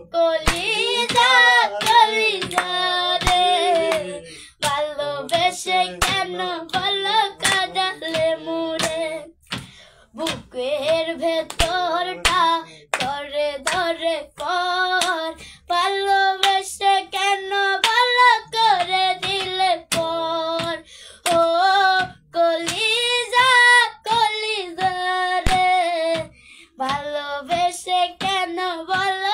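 A young girl singing a song, with hand claps keeping the beat about twice a second.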